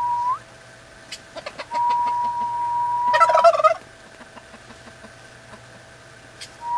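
Domestic turkey gobbling once, a short rattling gobble that cuts in right after a long, steady whistle-like tone. A few soft ticks come before the tone, and the steady tone starts again near the end.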